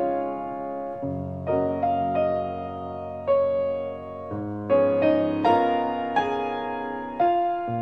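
Slow piano music: single notes and chords struck every second or so, each left to ring and fade.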